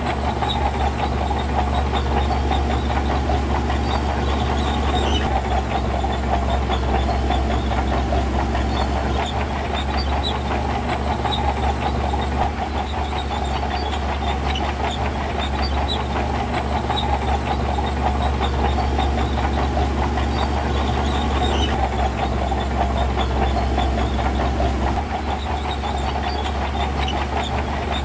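Heavy diesel earthmoving machinery running steadily, a constant low engine drone.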